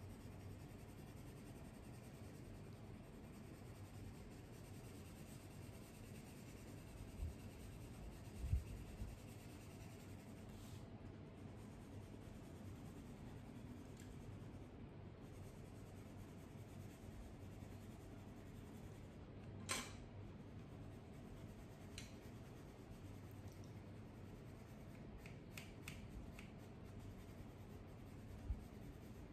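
Faint scratching of colored pencils on paper as an area is shaded. A few soft knocks come about a quarter of the way in, a sharp click about two-thirds through, and a few light ticks near the end.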